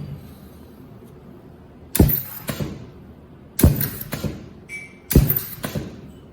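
Ultrasonic spot welding machine cycling three times at 1 kg air pressure: each stroke of the air cylinder drives the welding head down with a sharp clack and a brief rattle, about a second and a half apart. A short high tone sounds once between the second and third strokes.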